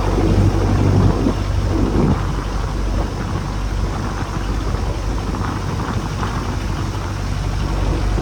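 Boat engine running steadily, heard through rough, surging noise of wind and waves on open water.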